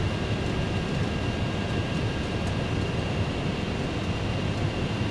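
Steady rush of air and engine noise on the flight deck of an MD-11 on final approach, with the landing gear down and flaps at 50. A faint, steady high whine sits over it.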